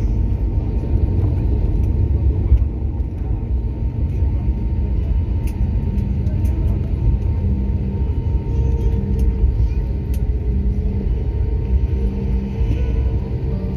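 Cabin rumble of an Airbus A320-family airliner rolling out on the runway after touchdown, its engines and wheels giving a loud, steady low rumble that eases slightly a few seconds in.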